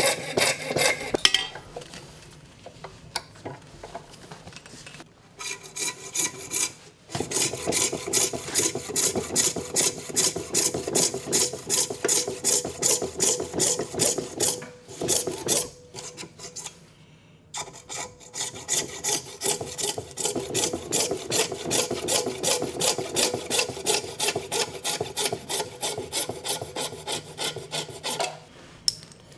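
Coping saw cutting through walrus ivory: quick, even back-and-forth strokes, about two a second, with a few short pauses. The sawing stops just before the end.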